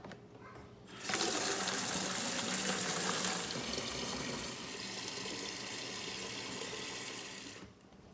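Water running steadily from a tap, turned on about a second in and off shortly before the end.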